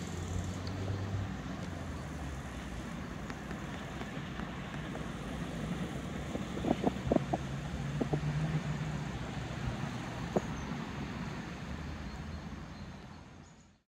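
Outdoor city ambience: a steady hum of distant road traffic, with a few short clicks about halfway through. The sound fades out near the end.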